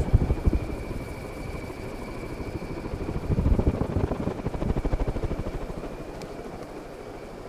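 1981 Casablanca Zephyr ceiling fan running, its blades giving a fast, even, helicopter-like pulsing that swells in the middle, over a steady high whine.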